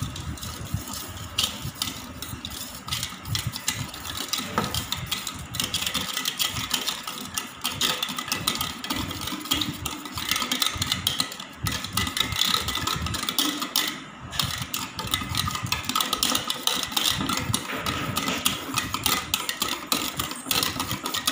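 Wire whisk beating egg and sugar in a metal bowl: a fast, continuous rattle of the wires striking and scraping the bowl's sides, pausing briefly a couple of times.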